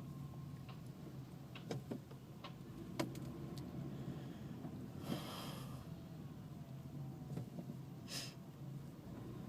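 Car cabin while driving: a steady low engine and road hum, with a few faint clicks and two short breathy hisses, about five and eight seconds in.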